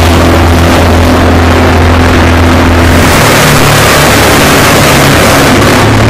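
Loud Rayco RC20 20-inch wood chipper running and chipping a small pine tree, with steady engine drone and the rush of chips blowing out the discharge chute. The engine note changes about halfway through.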